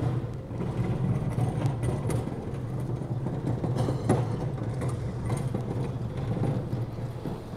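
Steady low rumble of street traffic, with a sharp knock about four seconds in.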